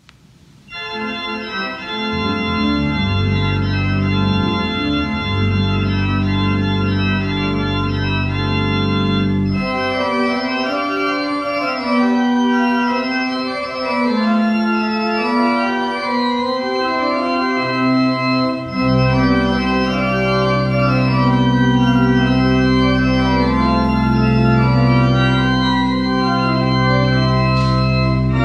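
Church pipe organ playing the postlude, starting about a second in with slow, sustained chords. Deep pedal bass notes sound under the chords at first, drop out for several seconds in the middle, and come back for the last third.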